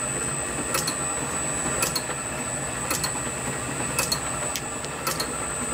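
Small vintage metal lathe running unloaded: a steady motor and drive hum with a faint high whine and a light tick about once a second.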